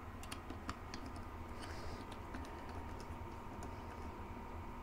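Faint, irregular small clicks and ticks of a precision screwdriver turning small screws into a plastic remote-control housing, with the plastic case being handled.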